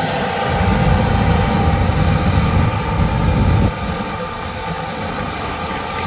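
John Deere S780 combine running as it harvests soybeans: a steady machine drone with a heavy low rumble that drops off suddenly a little past halfway.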